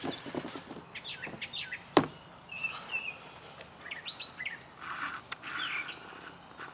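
Small birds chirping in short, repeated calls, with a few light clicks as the shoe is handled at the start and one sharp knock about two seconds in.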